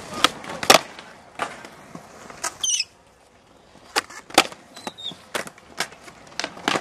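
Skateboard on smooth concrete: wheels rolling, broken by a string of sharp wooden clacks as the board is popped and lands, two of them close together about four seconds in. A brief high chirp sounds twice, a little before the middle and near five seconds.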